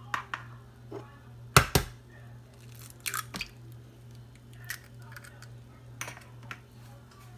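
An egg being cracked: two sharp taps of the shell about one and a half seconds in, the loudest sounds, with smaller cracks and clicks as the shell is pulled apart and the egg drops into the container. A low steady hum runs underneath.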